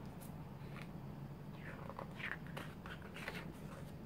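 Pages of a glossy photo book being turned and smoothed down by hand: a series of short paper swishes and rustles with small clicks, most of them in the second half, over a low steady hum.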